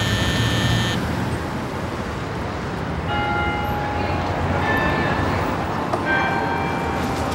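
Steady street traffic noise, with short pitched tones of about a second each near the start, a few seconds in and near the end.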